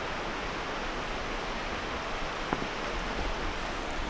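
Steady outdoor ambient hiss by open water, with no distinct event except one faint tap about two and a half seconds in.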